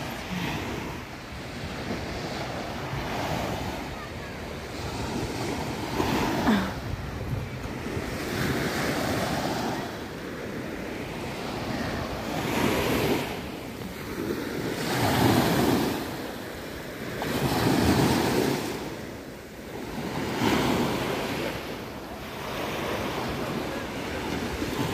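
Small sea waves breaking and washing up on a sandy shore, swelling and falling every few seconds, with wind rumbling on the microphone.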